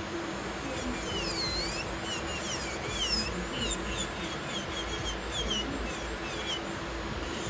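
Electric nail drill running with a steady hum as it grinds down a little toenail. Over it, a run of short, high, swooping chirps from about a second in until near the end.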